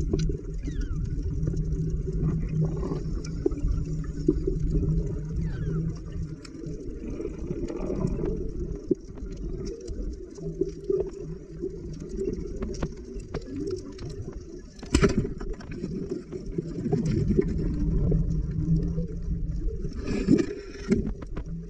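Underwater sound picked up by a camera below the surface: a muffled low rumble with a low hum that comes and goes, and scattered clicks and crackles, one louder click about fifteen seconds in and a run of clicks near the end.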